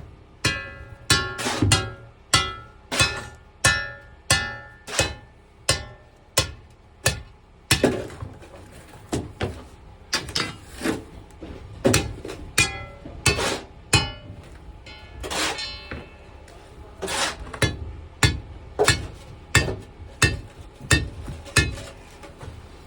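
Repeated ringing metal-on-metal strikes, about two a second with small gaps, each clank leaving a short pitched ring, as on steel rebar.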